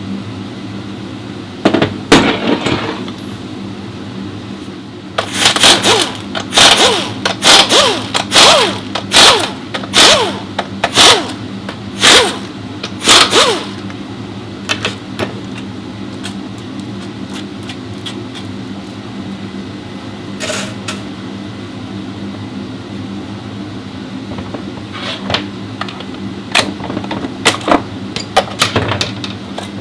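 Repeated sharp metal strikes and clanks from work on a CVT transmission casing and its parts: a quick run of about a dozen blows under a second apart, then scattered lighter clicks and knocks, over a steady workshop hum.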